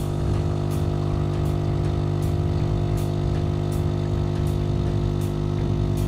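Philips 2200 series espresso machine's vibratory pump humming steadily as it pushes water through the brewing unit for an espresso, with a faint tick about every three-quarters of a second.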